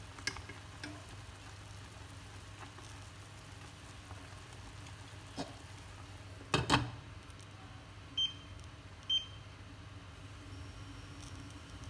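Chopsticks clicking against a steel pot of boiling taro stems, then a glass lid knocking twice onto the pot about six and a half seconds in. Two short beeps follow about a second apart from the glass cooktop's touch controls, over a low steady hum.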